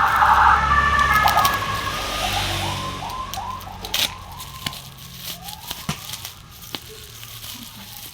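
A siren wailing, its pitch sweeping up and down in quick repeated swoops and then in one long slow sweep. A low rumble lies under the first couple of seconds, and sharp clicks come now and then.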